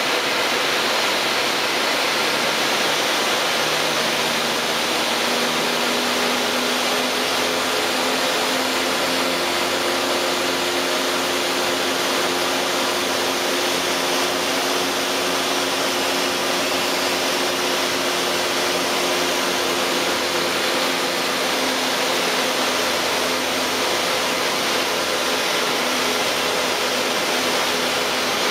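Steady rushing airflow noise in the cabin of a Beechcraft Duchess light twin in a steep, fast idle-power descent with the landing gear down. A faint drone from the idling engines and propellers comes in a few seconds in and fades again near the end.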